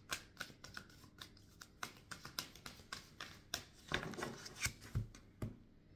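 A tarot deck being shuffled by hand: a run of quick, irregular card snaps and rustles, busiest about four to five seconds in.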